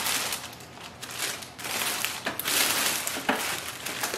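Clear plastic bag over a laser printer crinkling and rustling as hands handle it, coming and going unevenly.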